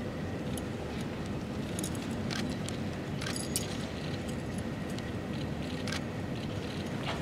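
Metal chain of a kusarigama jingling and clinking as it is swung and whirled. Scattered light metallic clicks come in small clusters over steady room noise.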